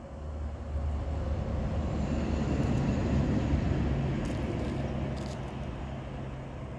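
Low motor rumble of a passing vehicle, swelling to its loudest about three seconds in and then fading.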